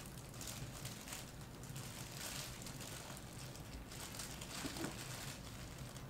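Clear plastic packaging bag crinkling and rustling in irregular bursts as it is handled and slid off a humidifier.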